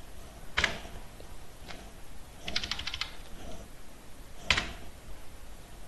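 Computer keyboard keys being typed: a few single key clicks and a quick run of about six strokes a little before the middle, with the sharpest click near the end.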